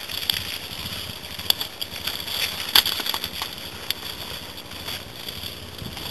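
Yamaha XT dirt bike's engine running at a distance as the bike rides away up a snowy track, a low steady drone with a few short sharp clicks.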